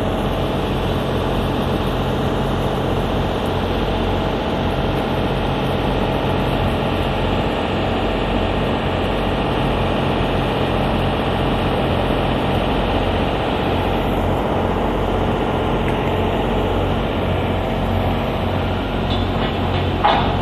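Steady drone of running industrial plant machinery, a low hum with several steady tones underneath and no change in level. A brief sharper sound near the end.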